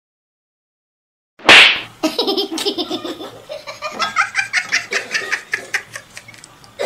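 Silence for about a second and a half, then a sudden loud burst and a long run of rhythmic laughter, a dubbed-in laugh sound effect.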